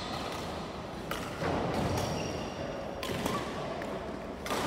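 Badminton rackets striking a shuttlecock: several sharp hits a second or more apart, with short high squeaks in between.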